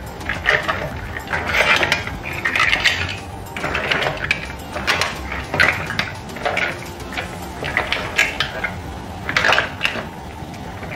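Mussel shells clattering against each other and the pan as they are tossed with a silicone spatula, in irregular bursts of clicks about once a second.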